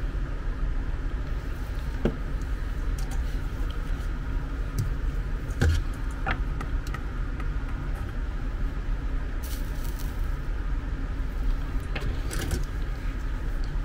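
A steady low hum runs throughout, with a few small clicks and taps as wires are handled with tweezers at a circuit board.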